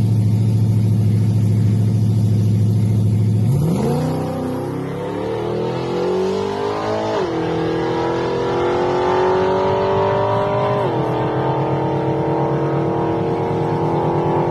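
Car engine running steadily, then accelerating hard from about three and a half seconds in, its pitch climbing through the gears with two upshifts, about seven and eleven seconds in.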